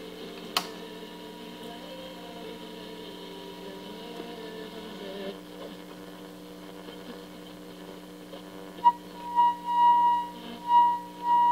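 The 1964 Star-Lite FM-W200 tube radio's speaker gives out a low hum and faint hiss as its AM dial is tuned, with one sharp click about half a second in. From about nine seconds a steady whistle-like tone near 1 kHz swells in and out several times and then holds loud. This is the signal generator's 1400 kHz test signal, with its modulation tone, being tuned in.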